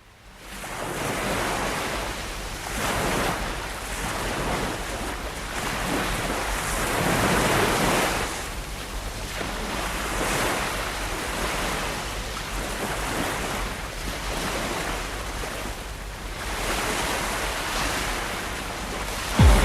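A rushing noise that swells and eases every second or two, over a steady low hum.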